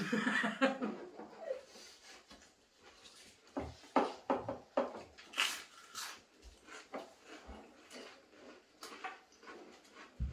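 Pringles crisps being crunched and chewed, with scattered sharp crackles that come thickest from about three and a half to six seconds in. It opens with a short whining moan.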